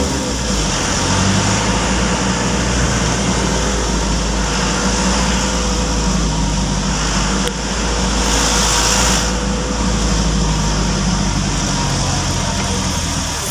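Steady car engine and road noise while driving in city traffic.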